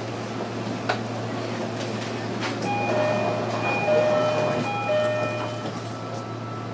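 JR Kyushu 305 series electric train standing at a station platform with a steady low hum. About three seconds in, a short electronic chime of several stepped notes plays for about three seconds. There is a single click about a second in.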